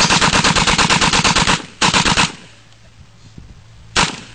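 Machine gun firing on full automatic: a long burst of rapid, evenly spaced shots, a short second burst just after it, then one single shot near the end.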